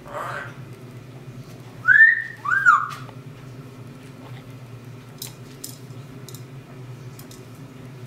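Yellow-headed Amazon parrot whistling two short notes that each rise and fall, about two seconds in, followed by a few faint clicks.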